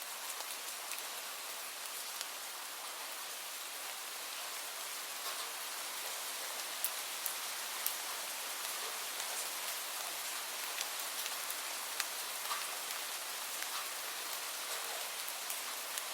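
Light rain falling steadily: an even soft hiss with scattered single drops ticking sharply close by.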